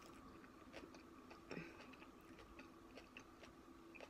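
Faint chewing and small, scattered clicks of someone eating rice and fish larb by hand, over a faint steady hum.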